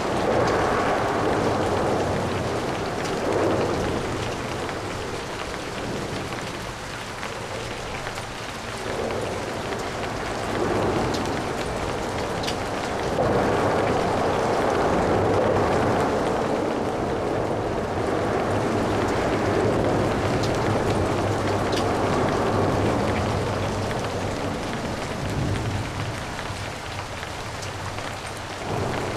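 Steady rain with light traffic on wet road: the hiss of tyres swells and fades as vehicles pass every few seconds.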